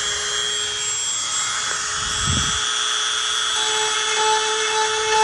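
Dremel rotary tool running with a steady high whine, its bit grinding into a crack in a plastic motorcycle fairing to open it up for plastic welding. A brief low thump about two seconds in.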